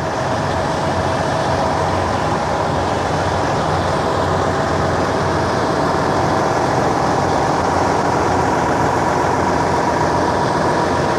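Large diesel engine running steadily and loudly close by: a constant low rumble with a steady hum over it.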